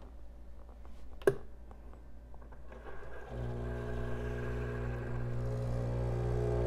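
Breville Barista Pro's vibratory pump starts about three seconds in with a steady buzzing hum that slowly grows louder, pushing water through the coffee puck at the start of a shot, before any espresso drips from the bottomless portafilter. A single sharp click comes about a second in.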